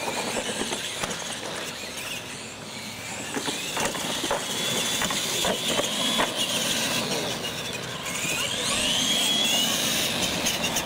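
Radio-controlled monster trucks racing on concrete: motors and gears whining, rising again in pitch near the end, with several sharp knocks as the trucks bounce and land off a ramp.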